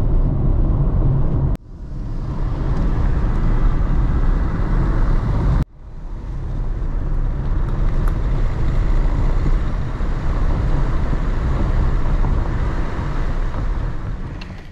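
Road and wind noise inside a moving small van with a window partly open: a loud, steady low rumble. It breaks off suddenly twice, about one and a half and five and a half seconds in, and swells back each time.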